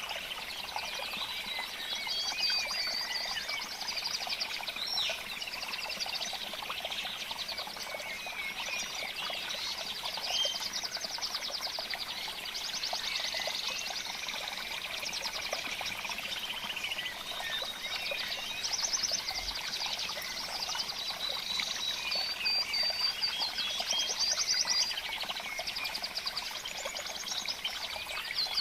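A dense chorus of small birds chirping and trilling, with many overlapping calls and fast pulsed trills.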